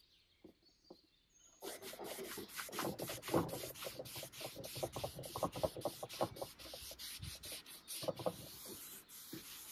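A cloth wiping stain over the wooden parts of an antique chair in quick back-and-forth rubbing strokes, starting about one and a half seconds in.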